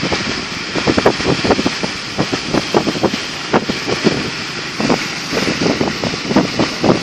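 Car driving along a rain-soaked road, heard from inside the car: a steady hiss of tyres on water and rain, broken by irregular dull thumps several times a second.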